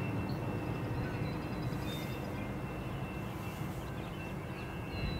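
Low rumble of a receding VIA Rail Siemens Venture passenger train (Charger locomotive and coaches), slowly fading as it draws away down the line. Faint bird chirps sound above it.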